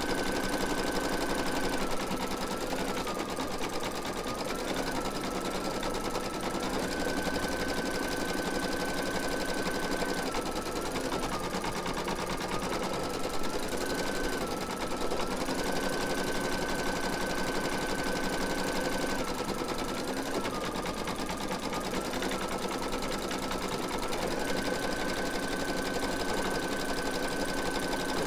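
Computerized embroidery machine stitching free-standing lace, its needle running with a steady whine that steps down and back up in pitch several times. It stops abruptly at the very end as it finishes a thread colour.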